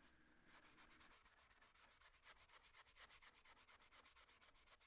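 Very faint hand sanding: folded sandpaper rubbed over the primed plastic nose cone of a rocket.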